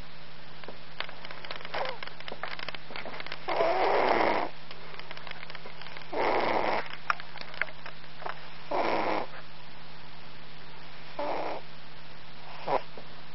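Norwegian forest cat snoring in its sleep: about five snores, one every two to three seconds, the loudest about four seconds in and the last ones shorter and fainter. A steady low hum runs underneath.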